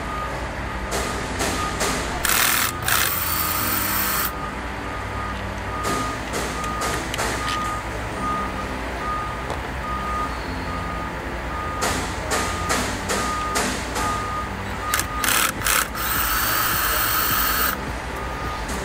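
Cordless drill spinning out the mounting bolts of an ABB circuit breaker, in two runs of about two seconds: one a few seconds in, one near the end with short spurts just before it. A steady beeping about twice a second and a low hum run underneath.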